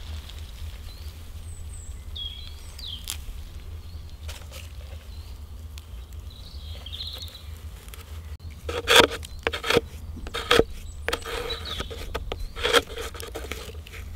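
Rustling and crackling as hands pack moss and grass into a cut plastic water bottle, a run of sharp crackles starting about eight seconds in. Faint bird chirps in the first half, over a low steady rumble.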